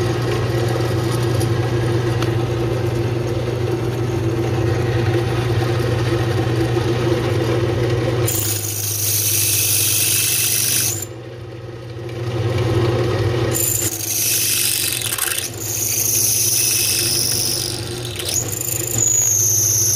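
Drill press motor running with a steady hum, then the drill bit squealing high as it cuts into a steel strap plate, in four bouts from about eight seconds in with short pauses between. The squealing bit is one that, by the driller's account, doesn't drill this steel as well as the other bit.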